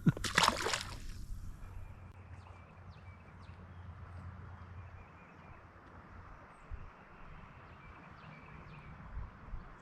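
A short splash about half a second in as a smallmouth bass is released back into the river, followed by a quiet, steady hiss of moving water.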